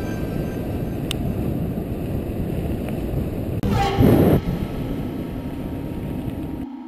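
Wind rumbling on a helmet-mounted camera's microphone with bike ride noise as a mountain bike rolls fast down a gravel forest track, with a louder rattling burst about four seconds in. Near the end it cuts suddenly to a much quieter steady low hum.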